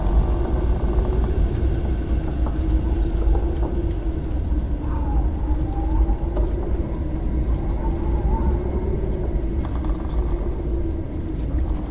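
Haunted-house ambience sound effect: a deep, steady rumble under a wavering drone, with thin wavering tones rising and falling about five and eight seconds in.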